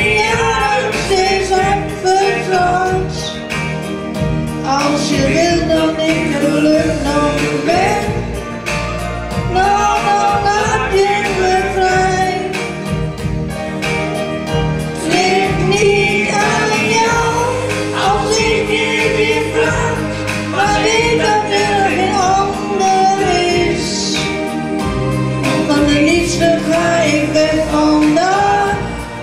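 A woman singing a Dutch song into a handheld microphone, reading the lyrics, over musical accompaniment with a steady bass line.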